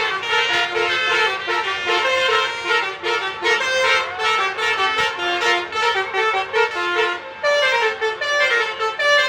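Indonesian bus's "telolet basuri" musical horn playing a quick tune of short notes that step up and down in pitch, without a break.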